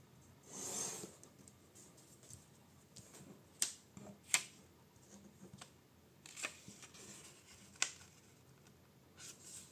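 A sheet of printer paper being handled and folded by hand: a soft swish of paper sliding near the start, then a few sharp ticks and faint rustles as the folds are pressed and creased, with another soft swish near the end.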